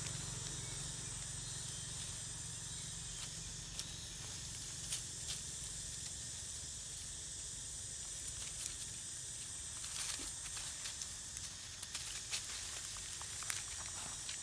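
Steady high-pitched hiss of outdoor ambience with a low background rumble, broken by a few faint rustles and taps in the dry leaf litter.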